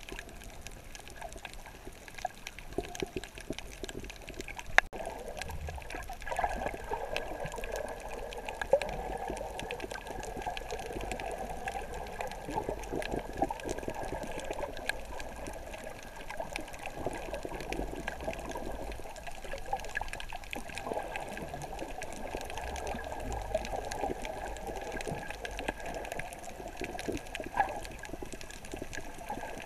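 Underwater water noise picked up by a submerged camera: a steady muffled sloshing and gurgling with many small crackles and clicks scattered through it, and a few sharper knocks.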